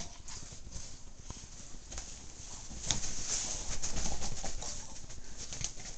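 A Boston terrier scrambling and thrashing on a bed with underwear caught over her body: rustling of bedding and fabric, scuffling, and small snuffling grunts from the dog. It gets busier about three seconds in.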